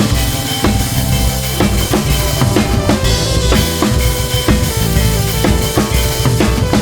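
Background music with a drum kit beat: regular bass drum and snare hits over steady bass notes.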